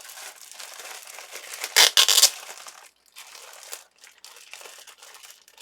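Mail packaging being handled and crinkled, with a louder, brief burst of rustling about two seconds in.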